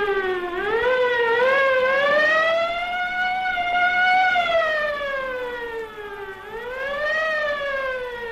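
Fire engine siren wailing, its pitch rising and falling in slow, uneven swells. The highest swell comes about four seconds in, with a lower dip about six seconds in.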